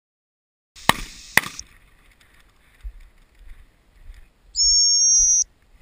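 A single short blast on a gundog whistle, a high steady tone a little under a second long near the end, given to a springer spaniel together with a raised-hand stop signal. Earlier, about a second in, there are two sharp cracks half a second apart.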